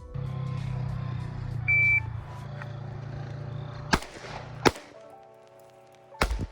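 Background music with a short electronic beep, like a shot timer, a little before two seconds in. A few sharp gunshots ring out in the second half.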